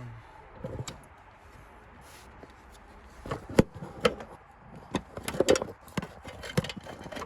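Hands working in a car's engine bay, with a cap being put back on. There are a few scattered clicks, then, from about three seconds in, a cluster of sharp clicks and knocks.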